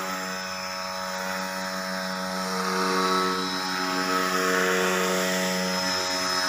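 Brushless motor and air propeller of a small RC airboat running steadily, a buzzing drone at a nearly constant pitch.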